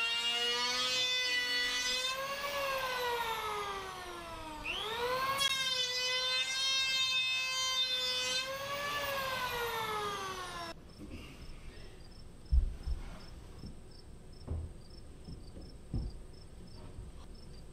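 DeWalt electric hand planer running, its motor whine sagging slowly in pitch and recovering as it is pushed along a board. About eleven seconds in it cuts off abruptly, followed by a few light knocks as a wooden cabinet is handled.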